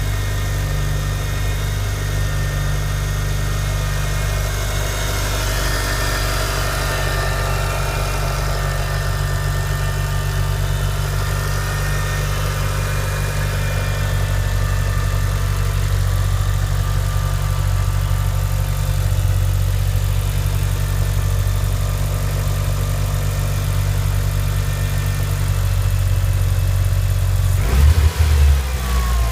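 Mitsubishi Lancer Evolution IX's turbocharged 4G63 inline-four idling steadily from cold, without the ticking or tapping it makes once hot. A brief louder burst comes near the end.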